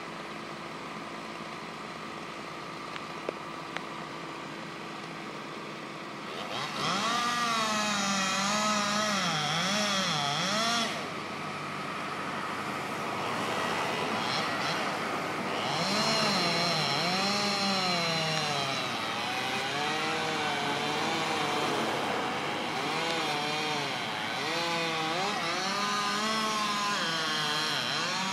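A steady engine hum, then from about six seconds in a two-stroke chainsaw running loud, its pitch dipping and recovering again and again as the chain bites into the wood during the cut, with a short easing off near the middle.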